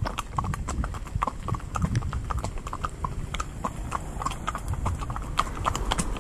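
Hooves of two horses clip-clopping on a tarmac road at a walk, an irregular run of sharp clicks over a steady low rumble.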